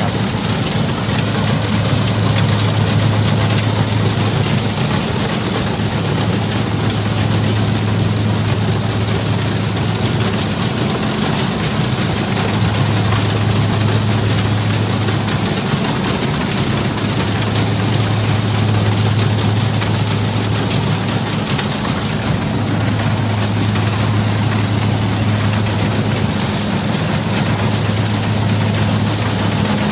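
Kubota DC60 combine harvester's diesel engine running steadily as the machine harvests rice: a loud, even low hum with the rattle and whir of the machinery over it.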